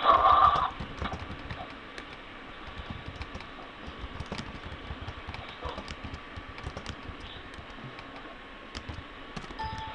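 A sleeping man snoring: one loud, rasping snore lasting under a second at the start, then a long quieter stretch with scattered faint clicks.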